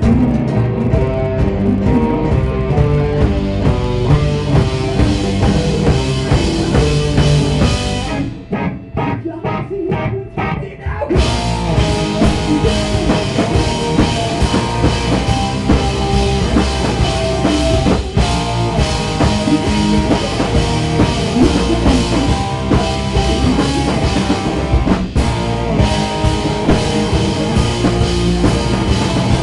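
Live rock band playing loud with drum kit and electric guitars. Most of the band drops out about eight seconds in, leaving a few separate hits, and the full band crashes back in about three seconds later.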